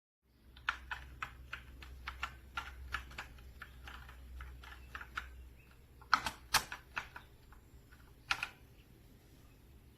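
Keys being typed on a TISHLED typewriter-style mechanical keyboard, with clicky keystrokes. It starts as steady typing at about three keys a second, then turns into a few louder, spaced key presses in the second half.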